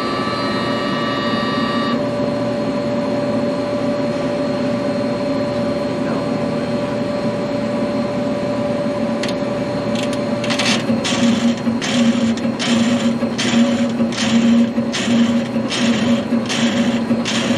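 Sinker EDM burning letters into flat stock with a graphite electrode submerged in its dielectric oil bath: a steady electrical hum with a held buzzing tone. About ten seconds in, a regular pulsing begins, about one and a half beats a second.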